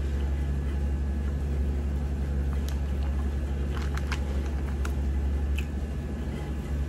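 A steady low hum, with a few faint light clicks and rustles from fingers mixing biryani rice on a banana leaf.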